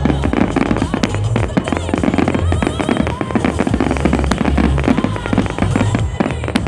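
Fireworks display: dense crackling of bursting shells, with a few sharper bangs, over music with a steady bass line.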